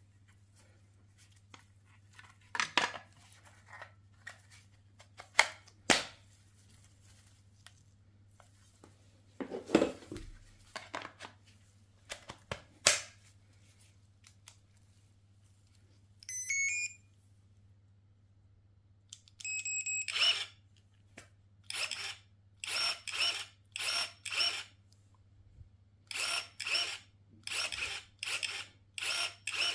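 Clicks and knocks of plastic and metal parts being handled, then a cordless brushless electric chainsaw's motor whirring in short trigger bursts, each under a second and about one a second, spinning up and winding down in the second half.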